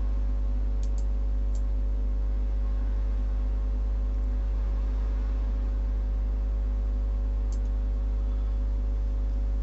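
Steady electrical hum, low and constant, with several fainter steady tones above it. A few faint computer-mouse clicks come about a second in, with one more later on.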